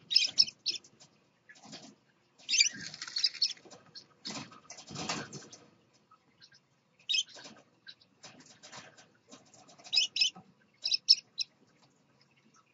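Scarlet-chested parrots giving short high chirps in several quick bursts, with a stretch of rustling about four seconds in.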